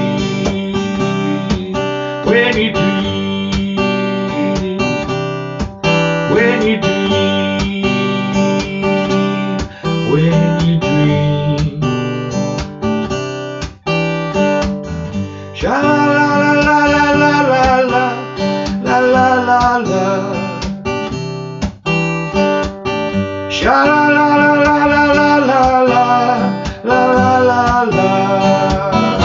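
Acoustic guitar strummed in a steady rhythm. About halfway through, a wordless voice joins, carrying the melody over the chords.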